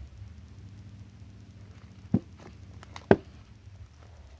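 Sticky homemade slime being handled, with two sharp clicks about a second apart over a low hum.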